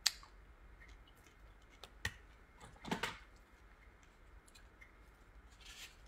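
Quiet room tone with a few faint, scattered clicks and taps: a sharp one right at the start, another about two seconds in, and a short soft rustle near three seconds.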